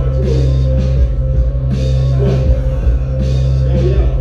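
An instrumental hip-hop beat plays loud through a concert PA. It has a heavy, sustained bass line and a drum hit about every three-quarters of a second.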